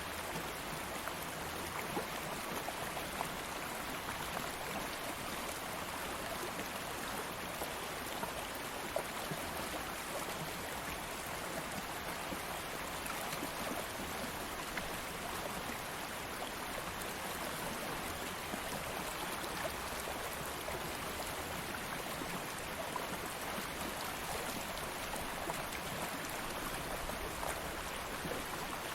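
A stream of water flowing steadily, a continuous rushing hiss with small splashes and gurgles throughout.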